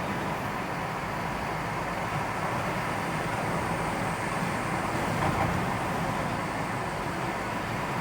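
Steady vehicle road noise, a continuous rumble of engine and tyres.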